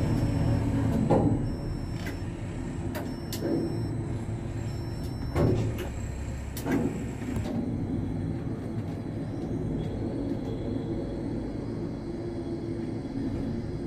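Steady low hum of a heavy engine, as from the delivery truck or crane at work, with about four sharp knocks in the first seven seconds.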